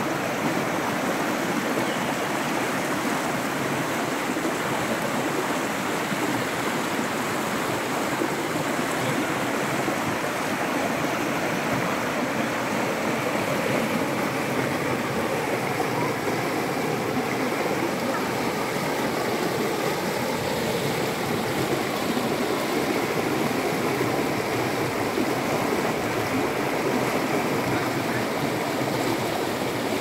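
Stream water running steadily, an even rushing with no let-up.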